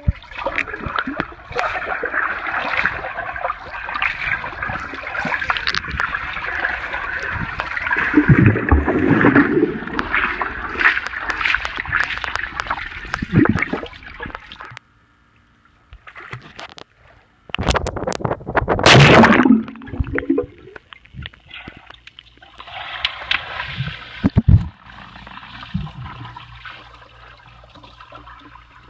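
Pool water splashing and sloshing around a camera held at the surface, with a brief quiet gap and two louder surging bursts. Near the end the sound turns dull and quieter as the camera goes under.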